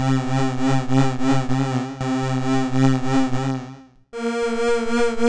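Crumar Stratus synthesizer playing a held note that wobbles fast and regularly, with the LFO modulation brought in by the joystick onto the VCA, the volume. Just before 4 s the note stops, and a higher note takes over with the same wobble.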